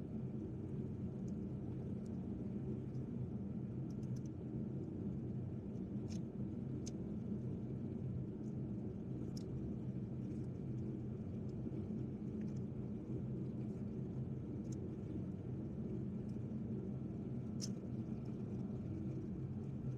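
A steady, low mechanical hum with a few faint clicks scattered through it.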